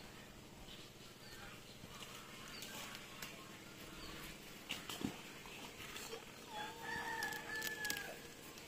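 A rooster crowing once, a drawn-out call of about a second and a half near the end, with a single sharp tap a little before it.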